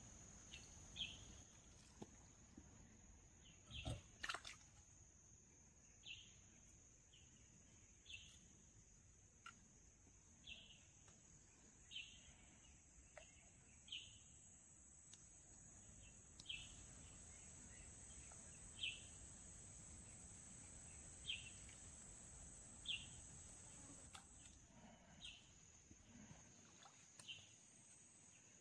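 Faint natural ambience: a steady high-pitched insect trill, with a bird giving a short chirp every second or two. A light knock about four seconds in.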